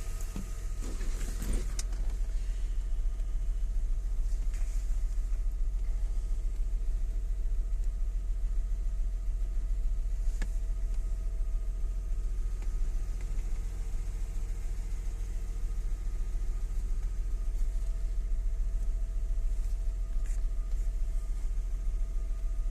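Audi 100 C4's 2.6-litre V6 engine running steadily with a deep hum.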